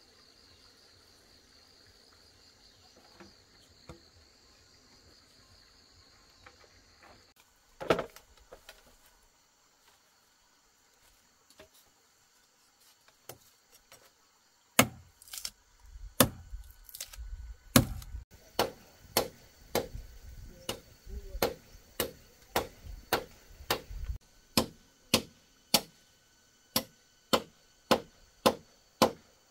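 Insects trilling at first, then a run of sharp, evenly spaced hand-tool strikes, about one and a half a second, some with a dull thud underneath.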